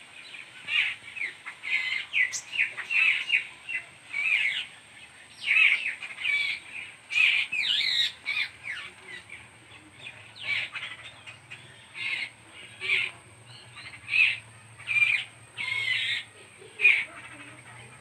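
Babblers calling: a long run of short, harsh, chattering calls repeated many times over, several birds answering one another.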